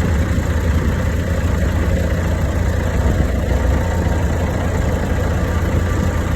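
Heavy diesel machinery engine running steadily, a constant low rumble.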